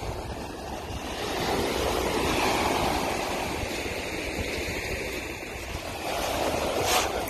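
Surf breaking and washing up a sand beach: a steady rush of water that swells about two seconds in and again near the end.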